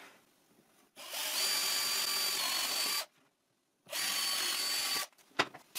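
Handheld electric drill boring two holes through plywood: a steady whine for about two seconds, a short pause, then a second run of about a second. A few light knocks follow near the end.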